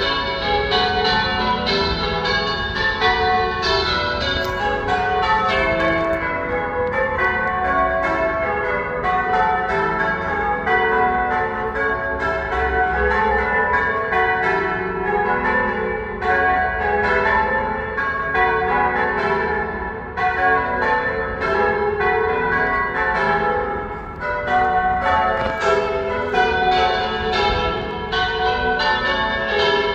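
Church tower bells rung in changes: an unbroken run of overlapping bell strikes at an even pace, each note ringing on under the next.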